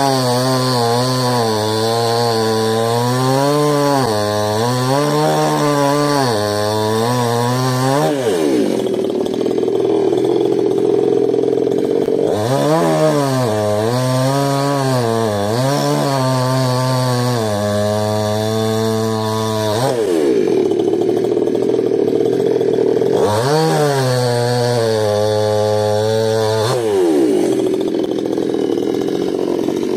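REZER FGS-5200MG 52 cc two-stroke chainsaw cutting logs at full throttle, its pitch dipping and recovering as the chain bites into the wood. It drops to idle about eight seconds in, revs up again for another cut, falls back to idle near twenty seconds, then makes one more short cut before dropping to idle near the end.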